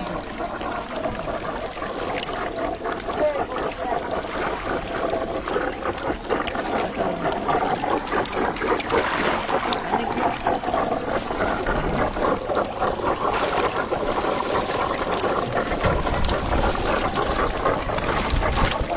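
Many fish thrashing and splashing in shallow muddy water, a constant crackling, churning splash.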